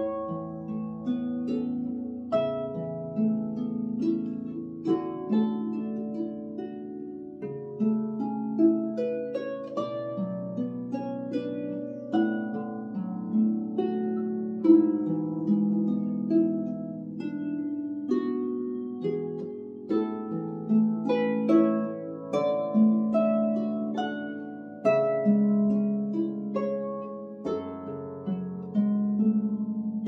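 Solo lever harp playing a Scottish tune: plucked notes, about one or two a second, each ringing on, with lower bass notes sounding beneath the melody.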